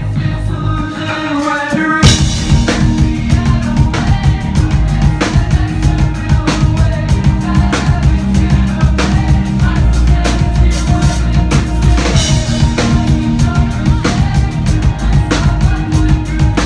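A live band playing a song. A sparser passage with a singing voice gives way, about two seconds in, to the full band with the drum kit coming in on a steady beat over heavy bass.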